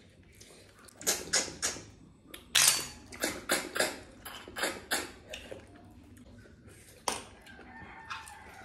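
Loud wet slurps and sucks as cooked snails in curry are sucked out of their shells, coming in quick runs of several slurps with pauses between.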